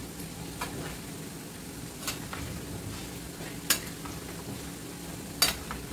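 Chicken skin and fat frying in a wide metal pan, sizzling steadily as its water cooks off on the way to rendered chicken oil. A metal spoon stirring it clinks against the pan four times, loudest near the middle and near the end.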